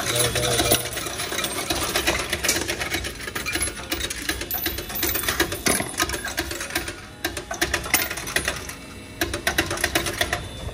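Bank coin-deposit machine counting a handful of loose coins: a fast, continuous rattle and clink of coins running through the counting mechanism. The clatter thins out about seven seconds in as the hopper empties, then picks up again briefly near the end.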